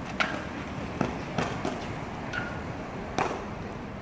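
Badminton rackets striking a shuttlecock in a doubles rally: several sharp cracks, the loudest near the start and just after three seconds in, with a brief squeak about two and a half seconds in.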